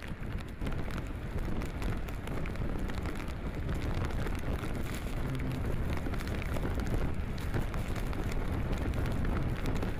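Wind and driving rain from a Category 4 hurricane: a dense, steady roar with heavy low buffeting of the microphone, and many small ticks of rain striking. It grows a little louder after about a second.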